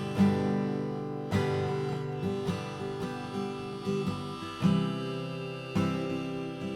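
Acoustic guitar music, strummed chords with a new strum about every second, without singing.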